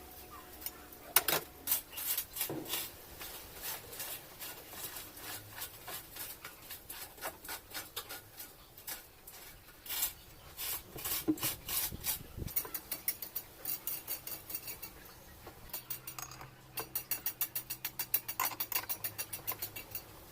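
Metal parts and tools being handled while a washing machine's mechanism is put back together: irregular clicks, taps and scraping, with a fast, even run of clicks, about five a second, in the last few seconds.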